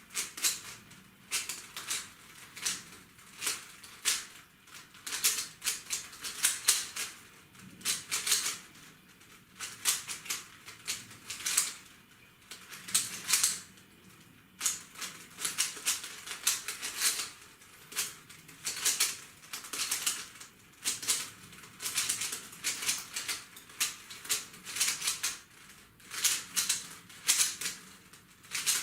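A 3x3 Rubik's Cube being turned fast during a timed solve: quick irregular runs of plastic clicking as the layers snap round, broken by short pauses.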